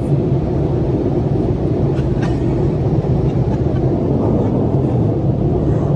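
Duramax diesel pickup running, heard from inside its cab as it rolls out of a car wash: a steady low rumble.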